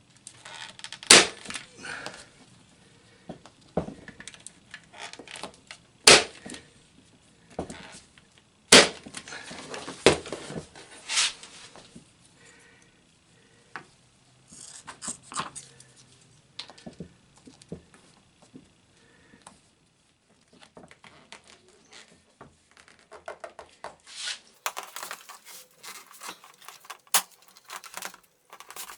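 Hand work on a door card's upholstery: irregular sharp clicks and knocks with rustling and tearing of the covering material, the loudest strikes about a second in and again around six, nine and eleven seconds in.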